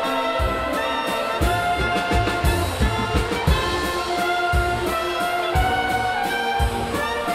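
German brass band (Blaskapelle) playing live: brass and woodwinds carry a tune over a steady low beat from tuba and drums, about two beats a second.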